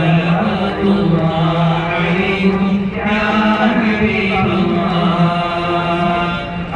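Male voices chanting together in unison, a slow melodic chant of held notes that goes on without a break.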